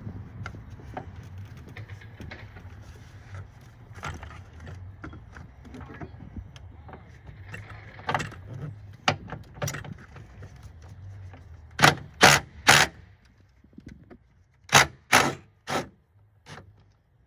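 Tool and metal-part handling while the battery hold-down bolt is taken out: a low steady rumble with faint scattered ticks, then short, loud sharp metallic sounds, three in quick succession about twelve seconds in and four more a few seconds later.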